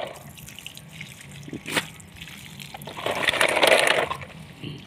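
Water sloshing and splashing in a plastic washtub as a small child moves about in it, with one sharp click a little under two seconds in and a louder burst of splashing about three seconds in.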